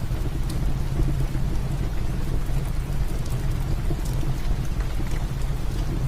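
Steady heavy rain with a deep low rumble, mixed with sparse small crackles and pops from a wood fire in a fireplace.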